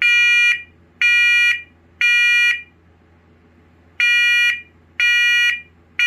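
First Alert wireless smoke alarm with voice sounding its horn in the temporal-three evacuation pattern. It gives three shrill half-second beeps a second apart, pauses, then starts three more.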